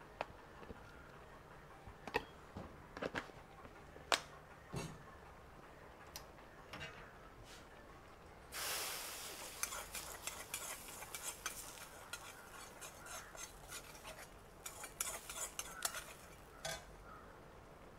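A metal ladle knocking and scraping in a large iron kadai as chicken perattu is stirred. About halfway through, a burst of sizzling starts, then fades over the next couple of seconds among more clinks of the ladle.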